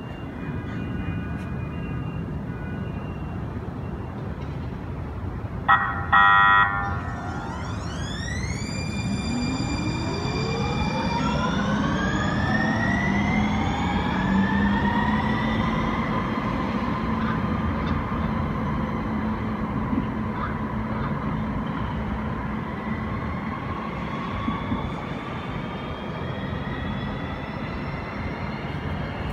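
San Diego Trolley light-rail train sounding a short horn blast about six seconds in, then its electric traction motors whining, the pitch rising steadily and levelling off as it picks up speed, over a steady low hum and rumble from the train.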